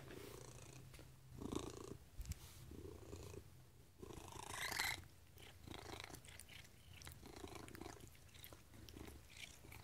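Maine coon cat purring, a faint low rumble that swells and eases in slow pulses, with a short chirping call about halfway through.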